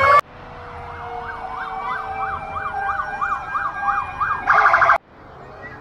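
Vehicle siren in a fast yelp, its pitch sweeping up and down about three times a second, followed near the end by half a second of a louder buzzy blast before it cuts off abruptly.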